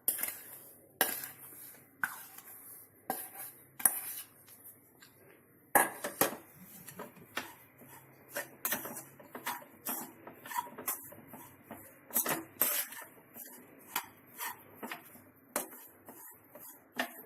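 Spoon stirring and scraping in a kadhai, knocking against the pan at irregular intervals, as powdered sugar is mixed into the roasted semolina and khoya filling.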